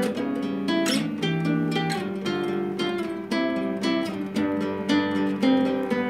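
Cutaway classical acoustic guitar, fingerpicked: a run of single notes over sustained bass notes and chords, with a sharply strummed chord about a second in.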